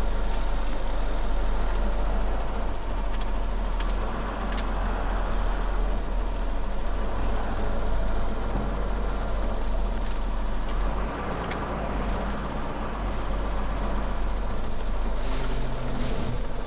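Ford Cargo 2520 truck's diesel engine running under way, heard from inside the closed cab as a steady low drone with road noise; the drone eases about eleven seconds in.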